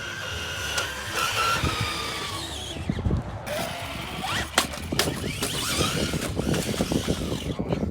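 Traxxas RC car's electric motor whining, its pitch rising and falling with the throttle. From about four and a half seconds in, a rapid run of clattering knocks as the car bangs over hard ground.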